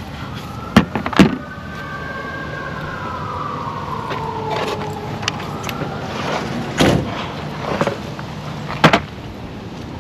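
Sharp metallic clicks and knocks of hand tools and bolts, the loudest about a second in and again near the end, over a siren wailing in the background with its pitch slowly sliding down.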